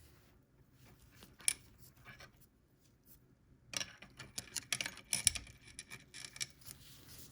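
Light clicks and scrapes of a screwdriver and a small loose screw being handled at the sewing machine's feed-dog mechanism: a few scattered clicks at first, then a busier run of small ticks from about four seconds in until shortly before the end.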